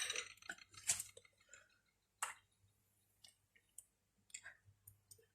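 Faint scattered clicks and light knocks as the milk frother and coffee cup are handled, with the sharpest knocks about a second in and again a little after two seconds.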